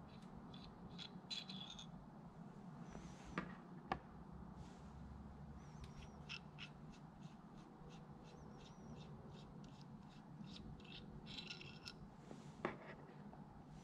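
Faint handling of a forged steel connecting rod and its cap bolts: light metallic ticks and clicks, with a few sharper knocks, two close together a few seconds in and one near the end.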